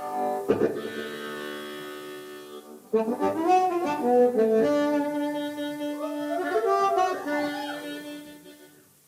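Live blues band music. A reed or wind instrument holds a chord for about three seconds, then plays a bending melody line over a long held note, which fades away near the end.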